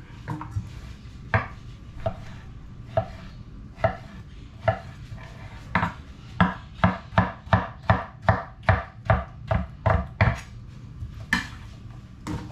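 Sharp kitchen knife chopping ripe papaya into sticks and cubes. The strokes are scattered at first, then come as a quick even run of about three a second, then slow to two last cuts near the end.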